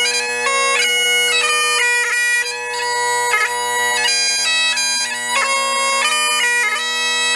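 Great Highland bagpipe played solo: the chanter melody moves quickly from note to note, with short grace-note flicks between them, over the unbroken steady hum of the drones.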